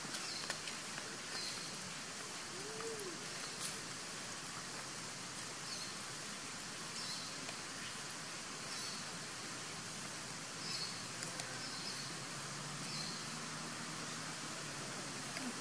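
Outdoor ambience: a steady hiss with short, high bird chirps repeating about once a second, and one brief call that rises and falls about three seconds in.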